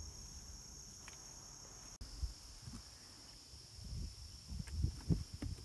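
A steady high-pitched chorus of insects, with a brief break and a slight drop in pitch about two seconds in. From about four seconds on, irregular low thumps and rustles sound underneath.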